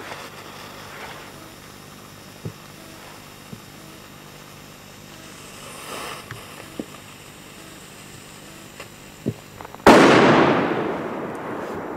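A firecracker going off about ten seconds in: a single sharp, very loud bang that rings out and dies away over the next two seconds. Before it there are only a few faint ticks and knocks.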